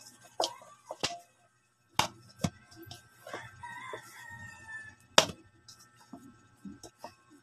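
Dough being kneaded and pressed in a stainless steel bowl, with several sharp knocks, the loudest a little after five seconds in. A rooster crows in the background for about two seconds in the middle.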